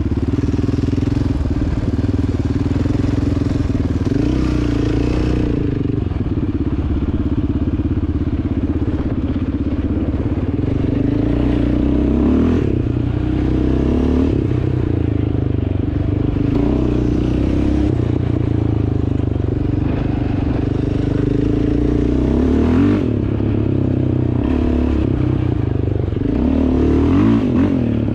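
Yamaha Raptor 700R ATV's single-cylinder engine running while riding trails, its pitch rising and falling in steps as the rider works the throttle and gears.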